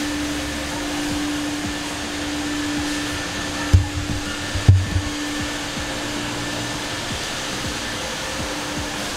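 Steady whir of a car-wash blower motor, such as a bay vacuum, running with a constant hum. Two short low thumps come about four and five seconds in.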